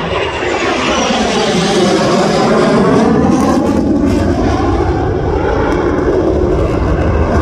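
F-16 fighter jet's engine flying past overhead: loud, steady jet noise whose tone sweeps and shifts as the aircraft passes.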